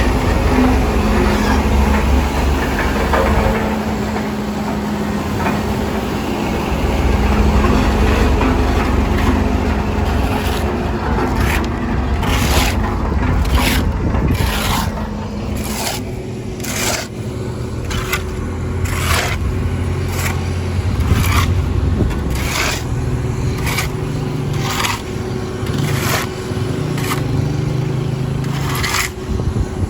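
Heavy construction machinery engine running with a steady low rumble. From about a third of the way in, short scraping strokes repeat roughly once a second over it.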